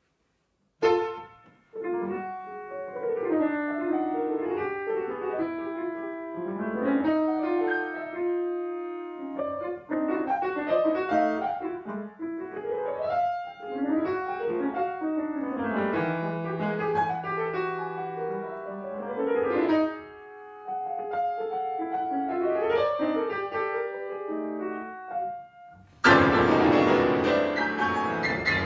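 Grand piano playing fast, angular atonal music: a sharp struck chord about a second in, then quick flurries of notes and held notes. Near the end comes a sudden loud, dense cluster of many keys at once.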